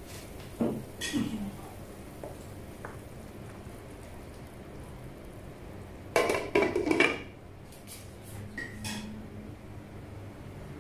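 Metal kitchen utensils and cookware clinking and clattering. There are a couple of knocks about a second in, a busy run of clatter around six to seven seconds in, and a few lighter clinks after it.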